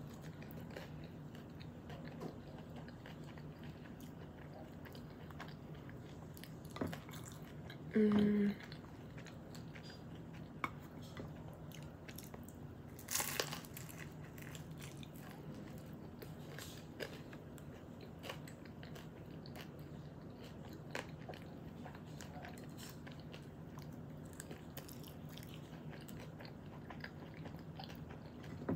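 Close-up chewing and biting of crispy rolled tacos of cauliflower and vegan chicken, with small crunches and mouth sounds over a low room hum. A sharper crunch comes about thirteen seconds in, and a brief low hum about eight seconds in is the loudest moment.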